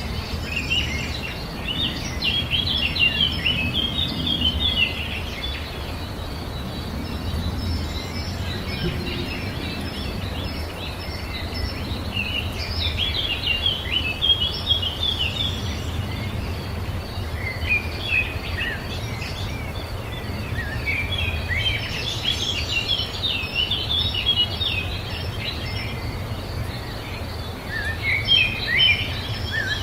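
Birdsong: several bouts of rapid chirping and twittering calls that come and go, over a steady low rumble.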